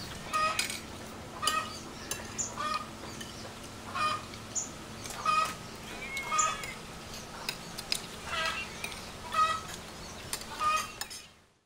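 Chickens clucking, short calls repeated about once a second, fading out near the end.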